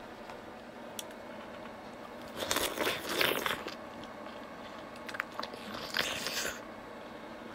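A person biting into a chunk of fresh pineapple and chewing it. There are two loud crunching bites, a longer one about two and a half seconds in and a shorter one about six seconds in.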